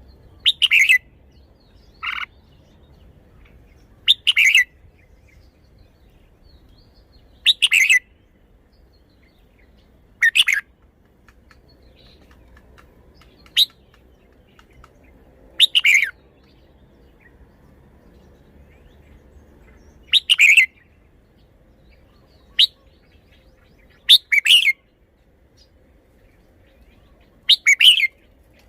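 Red-whiskered bulbul singing: about eleven short, bright song phrases, each under a second, spaced a few seconds apart.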